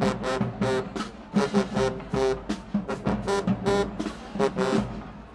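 Marching band brass and drums playing a rapid run of short, punchy staccato chords, which cut off near the end.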